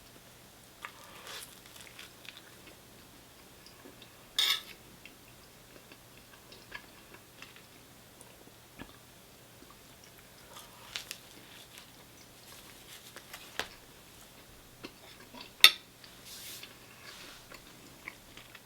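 Eating sounds: chewing, with cutlery and dishes clinking now and then. A louder short clatter comes about four and a half seconds in, and a sharp clink a few seconds before the end.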